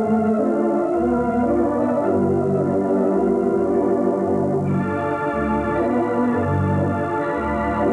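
Pipe organ playing slow music for skaters: sustained chords over a bass line that moves about once a second, the sound brightening with higher notes a little past halfway.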